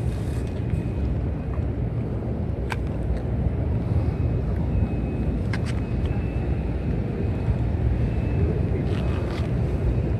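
Wind buffeting the microphone in the open air, a steady low rumble, with two faint clicks.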